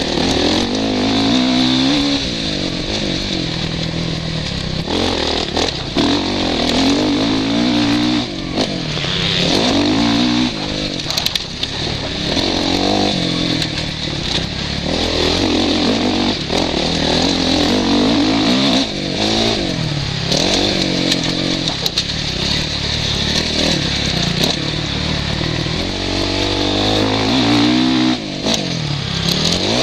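Suzuki RM-Z450 four-stroke single-cylinder motocross engine at full race pace, its pitch rising and falling again and again as the rider accelerates, shifts and rolls off over the track. Heard from a helmet-mounted camera, with wind rushing over the microphone.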